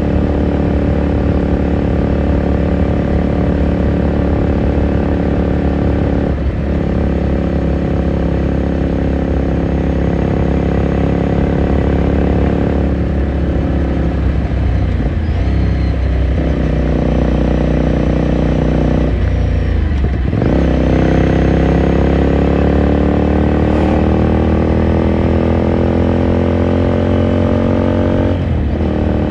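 2018 Ducati Scrambler Sixty2's air-cooled 399 cc L-twin running under way, heard onboard. The engine note breaks off and drops at gear changes a few times, then climbs steadily in pitch as the bike accelerates through the second half, with another shift near the end.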